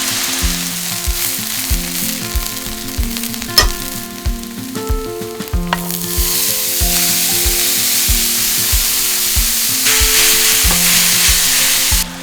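Food sizzling in hot oil in a pan, fading for a couple of seconds, then louder again and cutting off abruptly near the end. There is one sharp click about three and a half seconds in.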